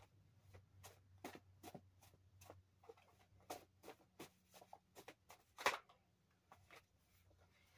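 Faint, irregular rustling and clicking of a stack of small handwritten paper cards being shuffled and leafed through by hand, with one louder flick about two-thirds of the way in.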